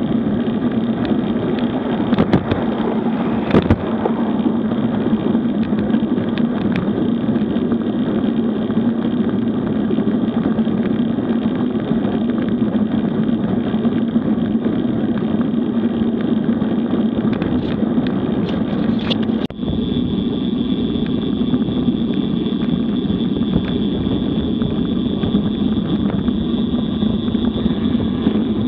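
Steady rush of wind over the microphone and bicycle tyres running on asphalt during a road ride. Just past two-thirds of the way through the sound drops out for a moment, and after that a thin steady high tone joins the rush.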